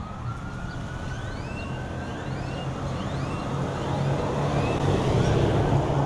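Steady hum of road traffic, with birds calling in short rising chirps about once a second and a long thin tone in the first two seconds. Rustling of brush and dry grass grows louder near the end as someone pushes through the bank vegetation.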